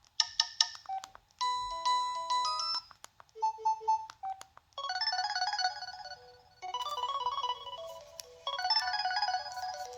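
Preloaded ringtones of an LG Revere Black Edition phone played one after another: about six short melodic tones, each cut off after a second or two before the next begins.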